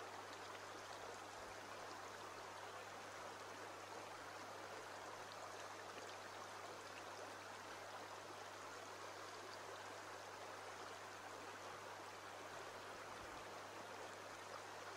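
Shallow stream running over pebbles: a faint, steady rush of water, with a steady low hum underneath.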